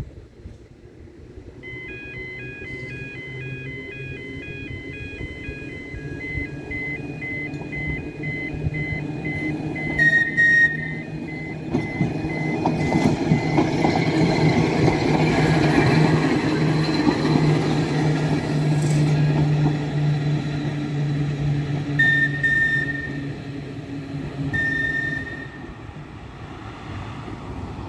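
Level crossing warning alarm beeping in a repeating pattern for the first several seconds, then a Manx Electric Railway tram crossing and passing: a rising rumble and hum of its motors and wheels on the rails that is loudest in the middle and fades as it moves away. Short high tones sound about ten seconds in and twice near the end.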